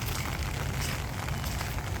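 Steady rain falling and pattering on surfaces, a dense crackle of drops over a low rumble.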